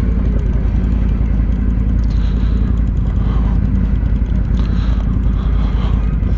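ATV engine running with a steady low rumble.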